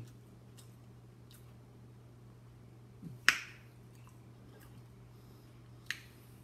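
Close-up eating sounds: a few sharp mouth smacks or bites, the loudest a little over three seconds in and a fainter one near the end, over a low steady hum.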